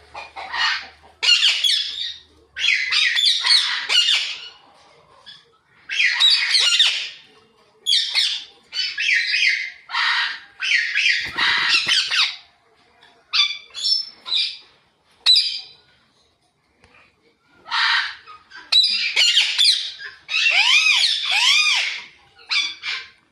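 Alexandrine and ringneck parakeets calling: a run of loud, harsh squawks and chirps in bursts of about half a second to a second and a half, with a pause of about two seconds past the middle.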